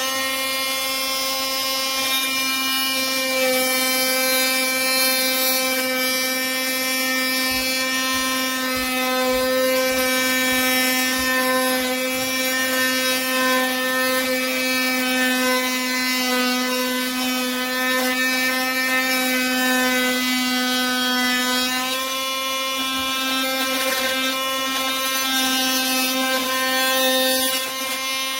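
Cordless oscillating multi-tool running at a steady speed, giving a steady buzzing whine with many overtones that holds one pitch.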